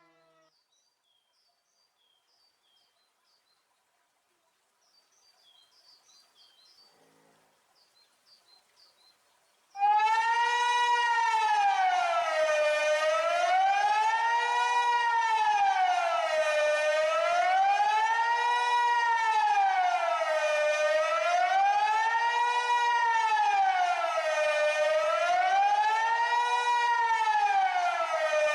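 After a quiet stretch, a Kockum Sonics Delta-8 AT electronic civil-defence siren starts abruptly about ten seconds in. It sounds the Swiss 'General Alarm': a loud wail that rises and falls in pitch about every four seconds.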